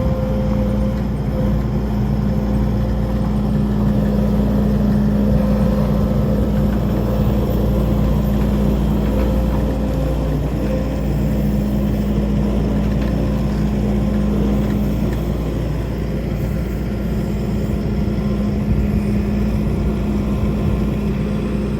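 Skid steer engine running steadily with a low rumble and a constant hum, which drops out briefly about halfway through.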